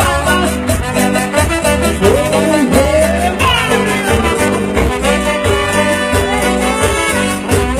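Live cumbia band playing an instrumental passage: trumpets carry the melody, with a few sliding horn notes, over keyboard, drums, bass and a metal scraper keeping a steady dance beat.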